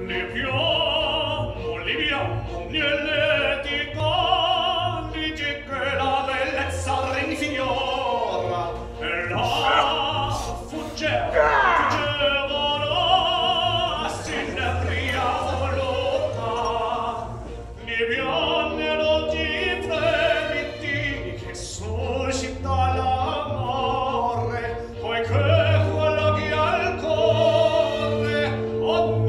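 Operatic tenor singing a classical piece with vibrato over a sustained accompaniment, laid over the pictures as music.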